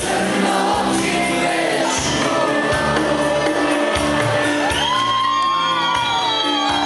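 Live Macedonian pop music with a male singer, played loud over a crowd in a hall. In the second half, audience members join in with high, gliding whoops and shouts.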